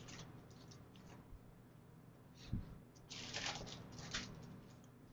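Paper pages of a Bible rustling faintly in short bursts as they are leafed through, with a soft thump about two and a half seconds in.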